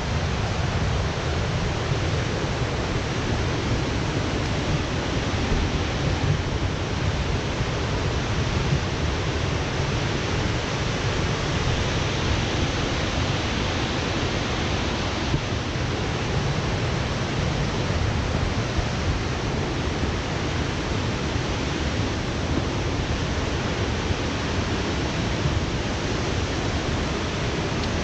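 Waterfall rushing: a steady, even roar of falling water with a low rumble underneath.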